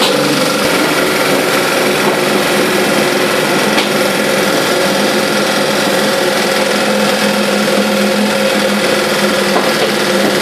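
BMW M30 straight-six race engine breathing through open-trumpet side-draft carburettors, idling steadily on its first run.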